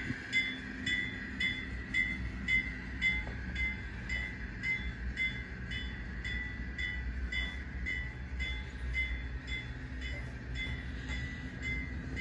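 N scale Union Pacific gas turbine model locomotive's sound decoder playing through its small speaker: a ringing, bell-like tone repeating about twice a second over a steady low hum, as the train of gondolas rolls by.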